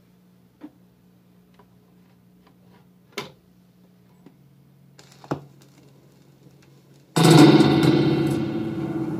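A few sharp clicks and knocks of a 12-inch vinyl record being handled and set on a turntable, over a low steady hum; about seven seconds in a reggae record suddenly starts playing loudly.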